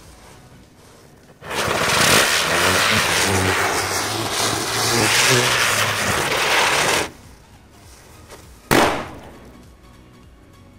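Diwali firecracker spraying sparks with a loud, steady hiss that lasts about five seconds and cuts off abruptly. About a second and a half later, another cracker goes off with a single sharp bang.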